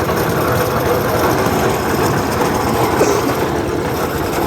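An engine running steadily, with a dense, even mechanical rumble.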